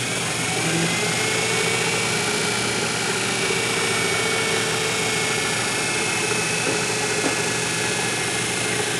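Metal lathe running with its chuck and test mandrel spinning, a steady mechanical whine as the spindle runs at about 800 rpm.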